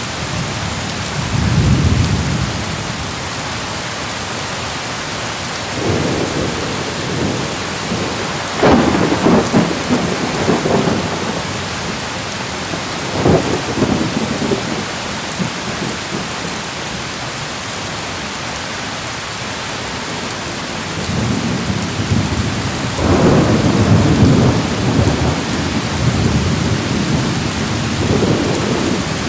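Steady rain falling, with rolls of thunder rumbling over it several times, the longest near the end.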